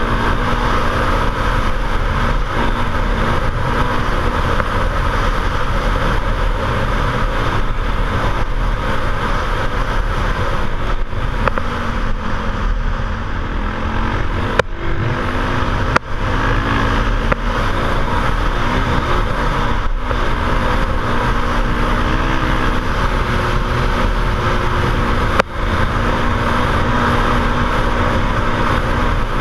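Motorcycle engine running under way, its pitch drifting up and down with the throttle, under heavy wind noise on the microphone. A few brief drops in level come around the middle and near the end.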